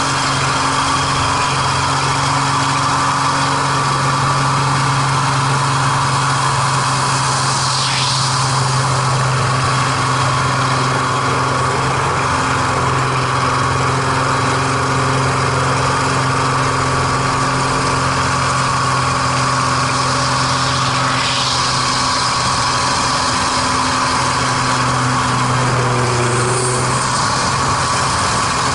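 MX2 aerobatic monoplane's piston engine and propeller droning steadily, heard from inside the cockpit, its pitch shifting slightly near the end. Three short rushes of hiss come through the drone.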